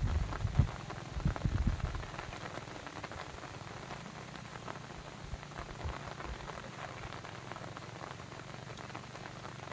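Steady rain patter, a dense hiss of many small drops. A few loud low thuds fall in the first two seconds.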